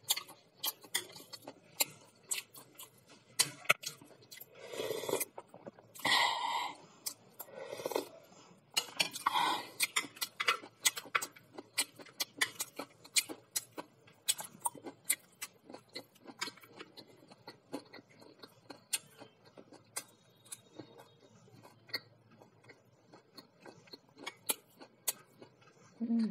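Close-miked eating of fried pakoras: chopsticks clicking and scraping against a plate and mouth sounds of chewing, heard as frequent short clicks, with a few longer noisy chewing stretches in the first ten seconds.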